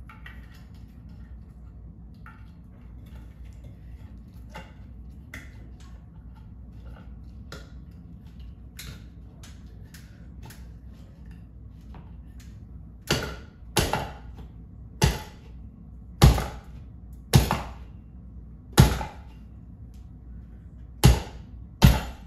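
Small clicks and handling noises of an LED retrofit recessed light insert being fitted, then, about thirteen seconds in, a run of about eight loud sharp knocks roughly a second apart as the round LED trim is forced up into the metal ceiling can by hand.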